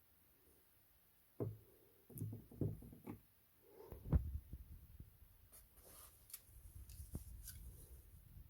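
Handling of boxes and packaging: several dull knocks and bumps in the first half, the loudest about four seconds in, then light rustling and small ticks.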